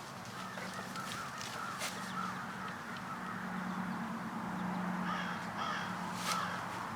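Honeybees humming steadily around an opened hive, with crows cawing repeatedly in the background and a few sharp knocks from hive parts being handled.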